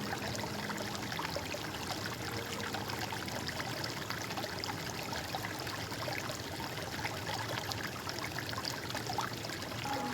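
A stream of water flowing and trickling steadily, full of small splashes.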